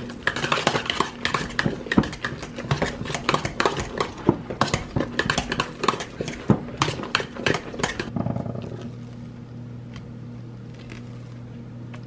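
Metal hand potato masher knocking and scraping rapidly and unevenly against a stainless steel stockpot while mashing skin-on red potatoes. The mashing stops about eight seconds in, leaving a steady low hum.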